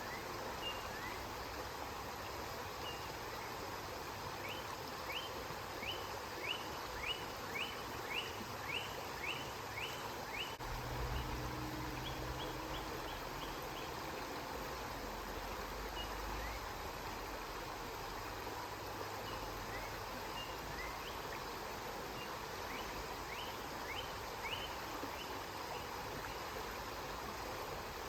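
River water flowing steadily, with a small bird calling in quick series of short high chirps, about two a second, a few seconds in and again near the end. A low rumble rises under the water for several seconds in the middle.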